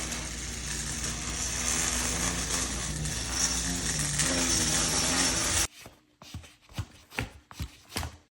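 Walker feet scraping and grating across a floor in one long continuous drag that cuts off abruptly a little over halfway through. A few short, quieter scuffs follow. This is the scraping noise of walker legs without gentle glides.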